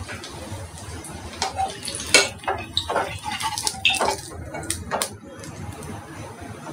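A metal slotted spoon scraping and clinking against a kadai as it scoops fried soya-cabbage chops out of hot oil, over a low sizzle of frying oil. The clinks and scrapes come in a quick run between about one and a half and five seconds in.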